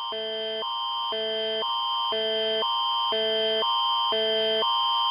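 Canadian Alert Ready emergency attention signal: a steady high tone over lower chords that alternate about every half second, heralding a tornado warning.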